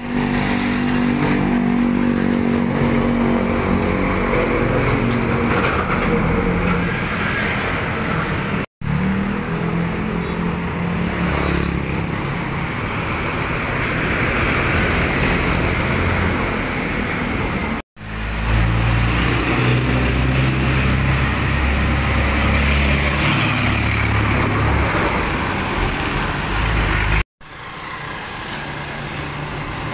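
Road traffic with heavy trucks driving past close by, their diesel engines running with tyre noise over the road. The heaviest, lowest engine sound comes about two-thirds of the way through, and the sound breaks off abruptly three times at edit cuts.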